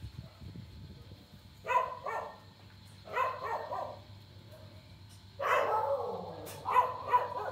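Dogs barking in four short bouts, with a faint steady high whine underneath.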